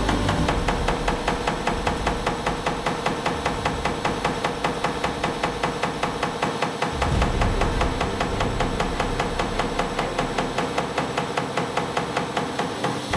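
Delphi unit injector for a Volvo diesel firing on an injector test bench during its fuel-delivery test: a rapid, regular clicking, about five a second, over the steady hum of the bench drive.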